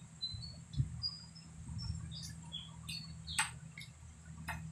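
Small birds chirping in short, high notes at varied pitches, with two sharp clicks about three and a half and four and a half seconds in, over a steady low hum.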